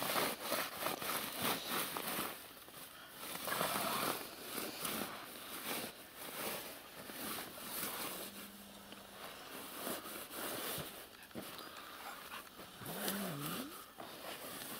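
Handfuls of hay scrubbing and rustling against the wet rubber of an inflatable boat as its floor and sides are wiped out, in repeated strokes, with a brief wavering whine near the end.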